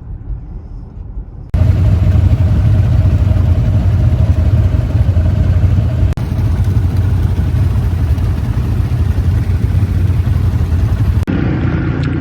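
Loud, steady low rumble of road and wind noise from a moving vehicle. It starts abruptly about a second and a half in, after a quieter stretch, and shifts at sudden cuts.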